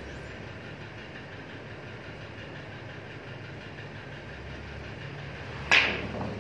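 Steady background hum, then near the end a single sharp click as a snooker cue strikes the cue ball and the cue ball hits the blue, the two contacts merging into one crack with a short ringing tail.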